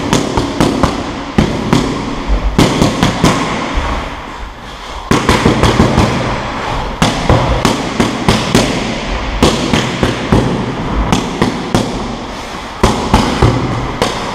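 Boxing gloves smacking into leather focus mitts: rapid punch combinations, several sharp pops in quick succession, then short pauses between bursts.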